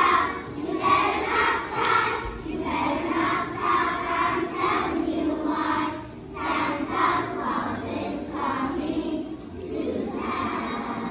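A large group of first-grade children singing a holiday song together, loud and a little shouted, in short regular phrases that dip briefly about halfway through.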